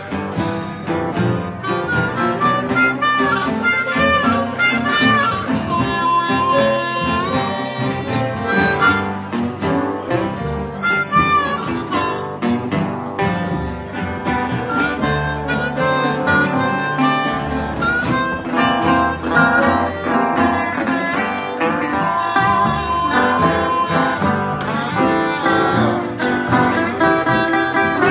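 Blues harmonica solo played held against a vocal microphone, with bending notes, over acoustic guitar accompaniment from a live band.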